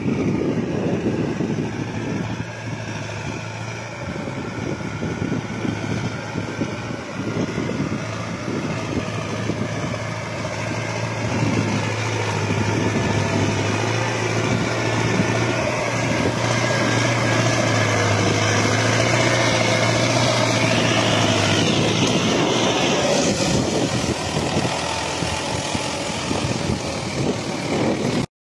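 MTZ-80 tractor's four-cylinder diesel engine running steadily under load as it pulls a plough through the soil. It grows louder as the tractor comes close and cuts off suddenly near the end.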